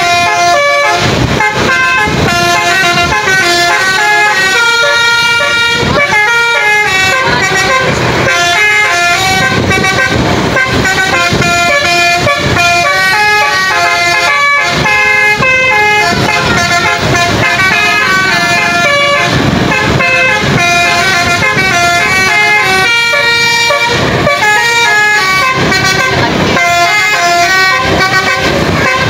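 Basuri musical air horn (telolet) on a Hino tour bus playing a running melody of short notes that change pitch one after another, loud and without a break.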